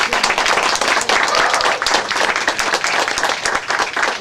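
A group of people applauding, dense clapping that thins out near the end.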